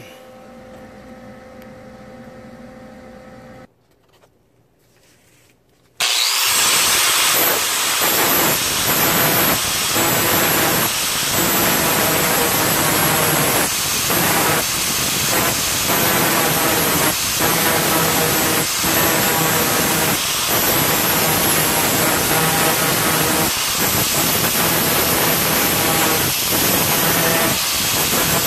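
Angle grinder with an abrasive disc switching on about six seconds in, then grinding against a steel sheet-metal panel. The grinding is loud and dips briefly now and then as the disc is worked across the metal.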